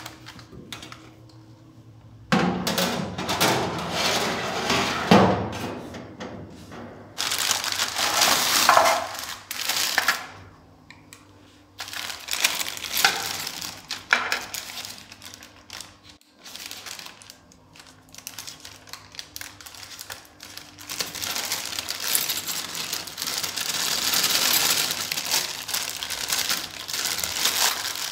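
Plastic wrapping crinkling and rustling in irregular bursts as a wrapped oven baking tray and a small bag of metal rotisserie parts are handled, with light metallic clinks from the parts.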